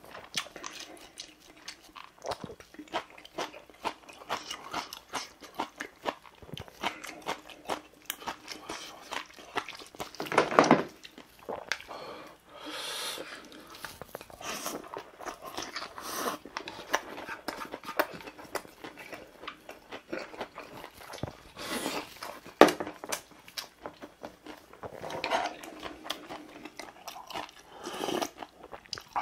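Close-miked eating: wet chewing, smacking and biting of mouthfuls of kimbap, pork fried rice and ramen, with irregular clicks and a few louder bursts. A sip of ramen broth from a spoon comes near the end.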